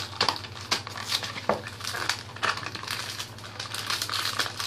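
Cardboard trading-card box being pried and torn open by hand: an irregular run of crackles, crinkles and sharp clicks.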